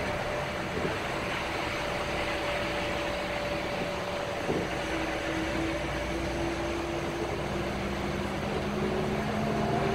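Inside a moving bus: steady engine drone and road noise, with faint engine tones that shift in pitch partway through.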